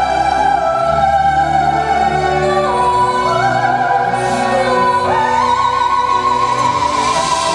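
Soprano singing long, wordless held notes with vibrato over orchestral accompaniment, her line stepping up in pitch about halfway through.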